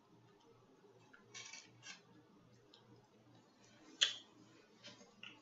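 Quiet eating sounds: a few brief wet mouth smacks while chewing seafood, then one sharp click about four seconds in.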